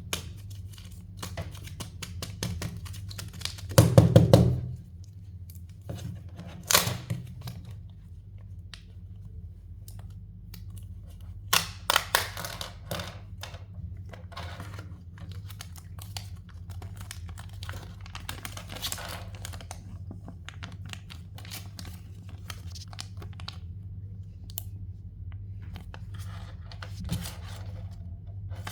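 Kinder Joy eggs being unwrapped and opened by hand: plastic wrappers tearing and crinkling, with clicks and knocks of the plastic capsules being handled. There is a loud thunk about four seconds in, over a low steady hum.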